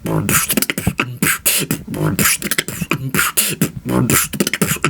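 Beatboxer performing a steady beat: sharp hissing snare and hi-hat sounds from the mouth alternating with low hummed bass notes.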